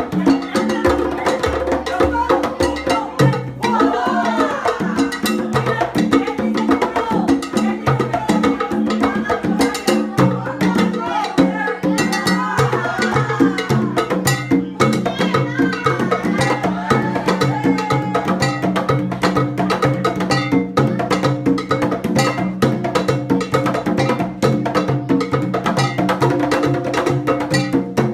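A live band playing Latin dance music in a salsa/rumba style: percussion with a steady clicking beat, a repeating bass line and a melody on top.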